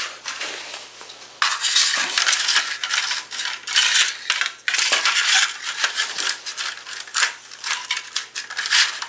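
Plastic Tyco slot car track sections being slid over a tile floor and pressed together at their joints: repeated scraping and clattering of hard plastic with sharp clicks, starting about a second and a half in.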